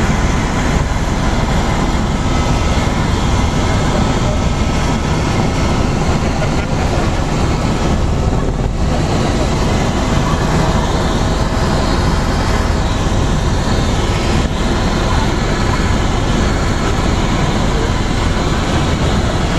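Helicopter in flight heard from on board: the engine and rotor make a loud, steady drone.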